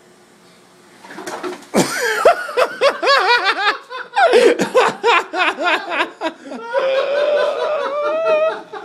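Several people laughing loudly, breaking out about a second in after a faint steady hiss.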